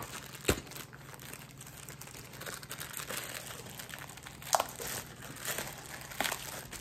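Clear plastic bag crinkling as it is handled and pulled at with both hands to tear it open, with a few sharp crackles, the loudest about half a second in and again near the middle.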